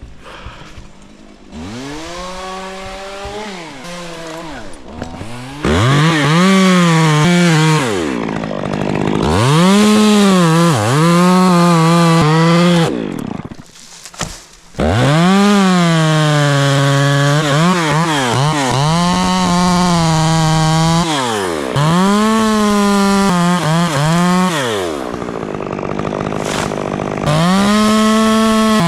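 Stihl two-stroke chainsaw revved up and down over and over, holding full throttle for a few seconds at a time while cutting wood, then dropping back toward idle between cuts.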